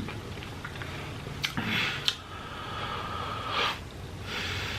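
Close-miked sniffing and mouth noises, with two sharp clicks about a second and a half and two seconds in, and a short hissy breath or sniff a little later.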